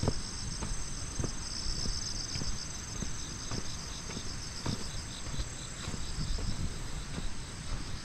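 Insects trilling in a steady, high, pulsing chorus, with the walker's footsteps on a wet paved road at an even pace of about three steps every two seconds, over a low steady rumble.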